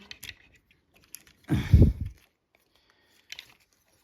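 Plastic parts of a Transformers Studio Series 86 Ratchet action figure clicking as it is handled and posed, a few light clicks spread apart. About a second and a half in there is a louder, muffled thump.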